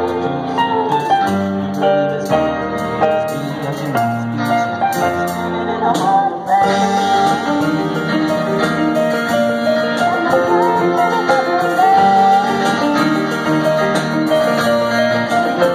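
A live band playing a pop song through PA speakers: a singer's voice over keyboard, electric guitar and drums, with the reverberation of a large gymnasium.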